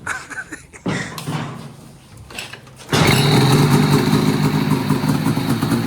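Supercharged snowmobile engine catching about three seconds in and then running steadily at idle. The sled has a running fault: it runs on one cylinder once it goes past idle.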